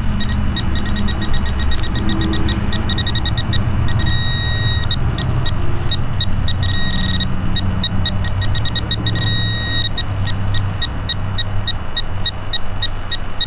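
Metal detector pinpointer beeping rapidly, about eight short high beeps a second, going into a longer held beep three times. It is picking up on a pull tab in the dug soil. A steady low rumble runs underneath.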